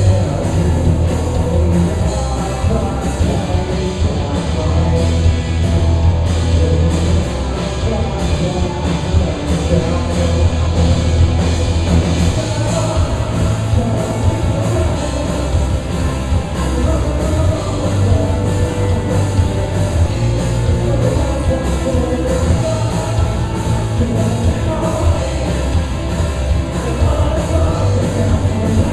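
Rock band playing live, with the drums keeping a steady, driving beat under a dense wall of band sound.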